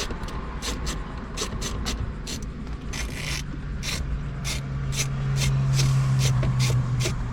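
A T20 Torx screw being backed out of the dash trim with a driver, a run of sharp clicks about three a second.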